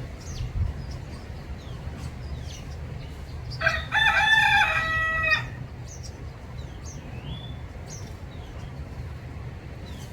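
A rooster crows once, a loud call of nearly two seconds a little before the middle. Small garden birds chirp briefly on and off throughout.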